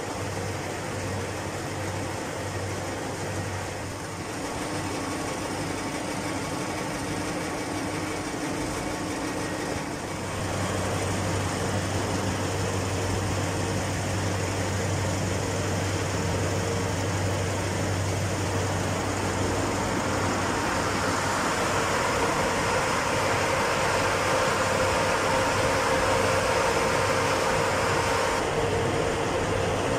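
Steady hum and whir of the machinery of a food-processing line for blanching, chilling and IQF freezing: conveyors, motors and fans running. It grows a little louder about ten seconds in and again about twenty seconds in.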